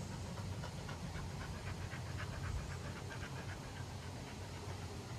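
A dog panting quickly, several breaths a second, over a low steady hum.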